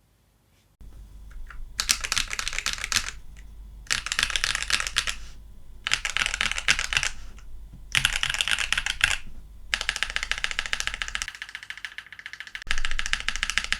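Typing on a Keychron Q2 mechanical keyboard with Akko CS Lavender switches: bursts of rapid keystrokes about a second long with short pauses between them, after about a second of quiet, then a longer run of typing near the end.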